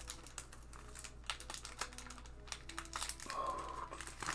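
Foil wrapper of a 2008 Upper Deck X baseball card pack crinkling and crackling in the fingers as it is torn open by hand.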